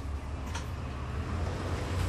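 Cummins ISL9 diesel engine of a 2011 NABI 40-SFW transit bus heard from on board as a steady low rumble, with a light click about a quarter of the way in.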